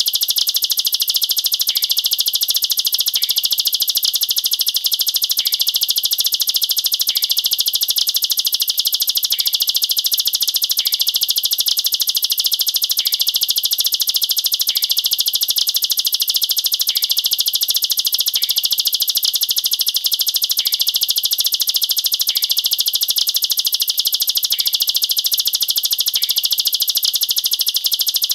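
Ciblek sawah (a prinia) singing its dense rapid-fire 'nembak rapat' song: a loud, high, unbroken rattling trill of very fast-repeated notes.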